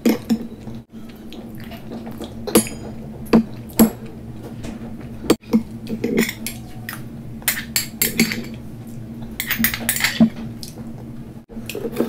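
Metal spoon clinking and scraping against a small glass bowl of sweet vermicelli, with a sharp clink every second or two.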